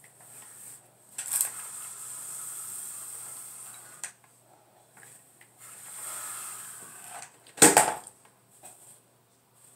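Hair rustling as a flat iron is slid down a section of hair, in two stretches. About three quarters of the way through comes a single sharp clack, the loudest sound, as a hard hair tool is handled.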